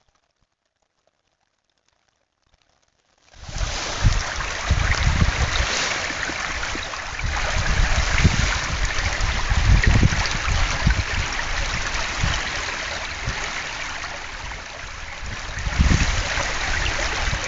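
Creek water rushing loudly and steadily, with an uneven low rumble underneath. It starts abruptly about three seconds in, after near silence.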